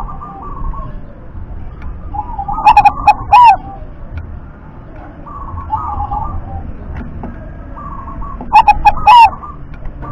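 Zebra dove (perkutut) cooing: two loud bursts of its rapid, staccato song, each about a second long, one just under three seconds in and one near the end. Fainter cooing phrases come in between.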